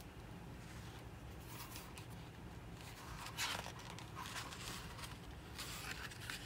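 Faint paper rustling as a hardcover book's cover is opened and its pages are flipped by hand: several short rustles, the loudest about three and a half seconds in.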